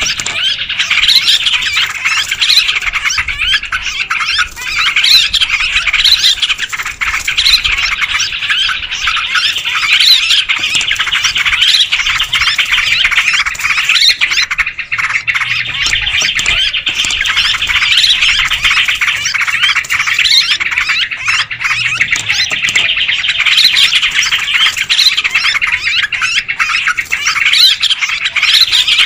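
Noisy flock of yellow-vented bulbuls calling: many overlapping chattering calls run on without a break. This is the kind of busy bulbul chorus played as a lure call to draw wild bulbuls in.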